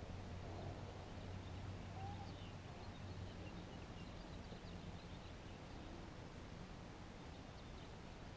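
Faint birds chirping now and then over a low steady hum.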